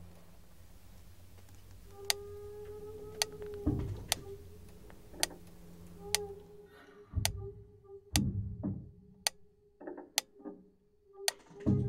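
Mechanical wind-up metronome ticking about once a second, starting about two seconds in, over a steady held tone and a few deep thuds.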